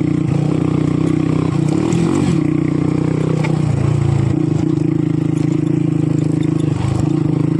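Modified motorcycle's engine running steadily as the bike is ridden along a dirt track. The engine note wavers briefly about two seconds in and again about four seconds in.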